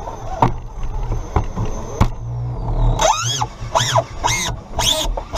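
RC rock crawler's electric motor and drivetrain running under load, heard from a camera on the truck, with a few sharp knocks in the first two seconds. From about three seconds in, five high squeaky calls follow, each rising and falling in pitch, about half a second apart.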